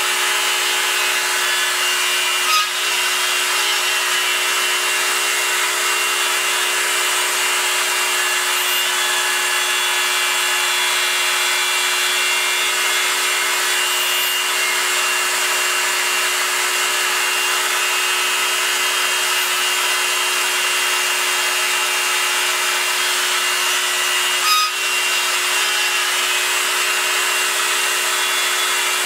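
Proxxon MF 70 mini milling machine with a CNC conversion milling aluminium: the spindle runs steadily as the small end mill cuts, a constant hiss with a steady whine. Two brief clicks, about two and a half seconds in and a few seconds before the end.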